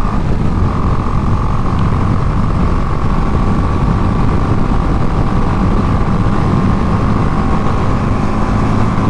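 Heavy wind buffeting on a GoPro's microphone on a motorcycle rider's helmet at highway speed, with the motorcycle engine droning steadily underneath. This wind noise is the action camera's known problem at speeds above about 80–90 km/h.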